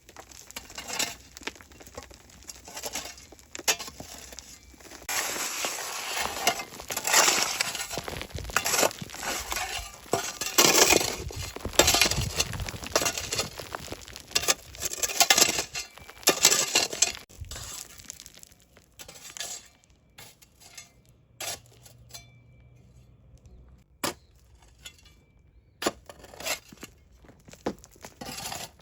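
Kitchen food-preparation sounds: a run of crunching and scraping strokes, then scattered clinks and knocks of dishes and utensils.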